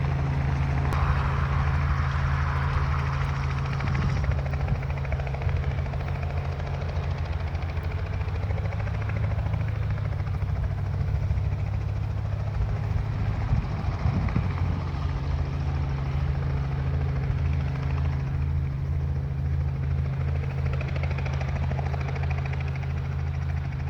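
Helicopter engine and rotor running with a steady low drone.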